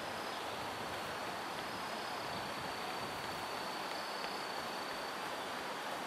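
Steady outdoor background noise, an even hiss, with a faint thin high tone running through it.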